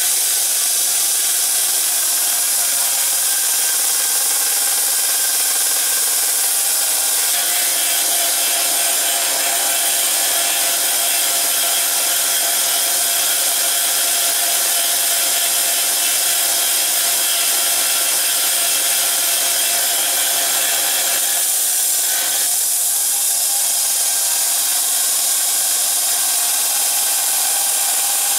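Small bench belt sander running steadily while a steel knife blank is ground against the abrasive belt to shape the bevel. The grinding tone shifts briefly about 22 seconds in as the blade's contact with the belt changes.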